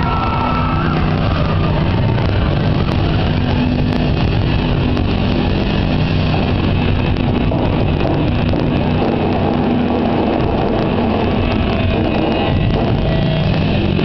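Rock band playing live on stage, drum kit and amplified instruments in a loud instrumental passage that holds steady throughout.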